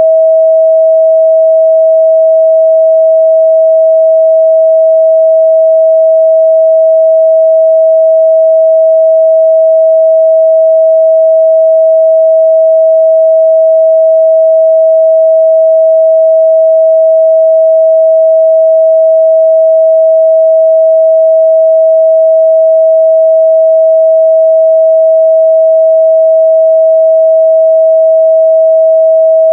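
A steady, loud 644 Hz pure sine-wave test tone, held unchanging at one pitch.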